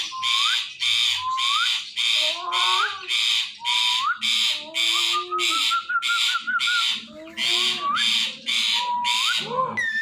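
Indian ringneck parrot calling: a steady run of harsh screeches about two a second, mixed with short rising whistles and lower warbling notes.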